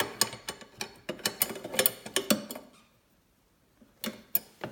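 Hand tools clicking and clinking against metal exhaust fittings while a tightened fastener is checked: a quick irregular series of sharp clicks for about two and a half seconds, a pause, then two more clicks near the end.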